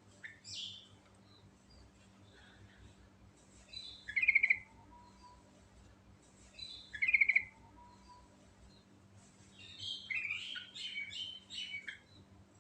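Yellow-vented bulbul (trucuk) singing. Two loud bubbly phrases about three seconds apart are followed near the end by a quick run of chattering notes.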